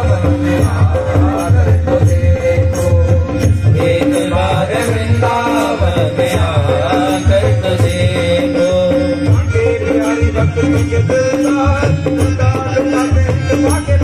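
Recorded Indian film song playing loudly: a singing voice over a sustained drone, repeating melodic notes and a pulsing drum beat.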